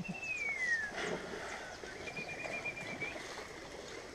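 A person whistling to call the animals: one long falling whistle, then a quick run of short, evenly repeated whistled notes.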